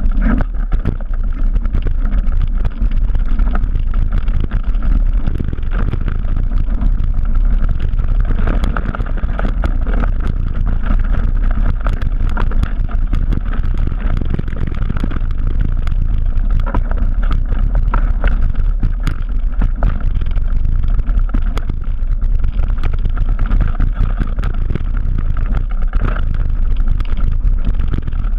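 Trek Remedy 9 full-suspension mountain bike descending a rough dirt trail at speed: a steady rush of wind on the camera microphone with constant rattling clicks and knocks from the bike and tyres over the ground.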